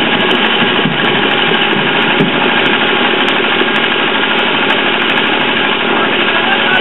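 An engine running steadily at idle, with no break or change.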